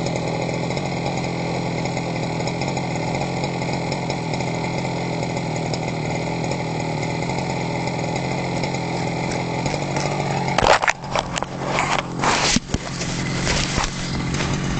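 Small two-stroke engine of a gas-powered RC Baja buggy, heard close up from the onboard camera, running at a steady, unchanging speed. About ten seconds in it gives way to irregular knocks and rustling bursts.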